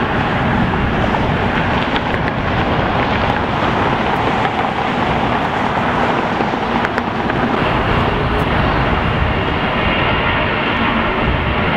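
Jet airliner engines running at taxi power: a steady rumble and rush, with a faint high whine joining about eight seconds in.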